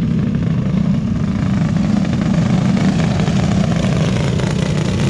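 A pack of racing go-karts' small engines running together as the karts go around the track, a loud, steady drone.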